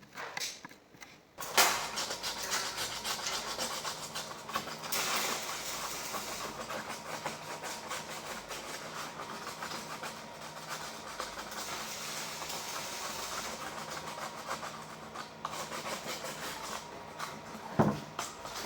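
Steady rasping of a surface being abraded, starting suddenly about a second and a half in, with a faint motor hum beneath it.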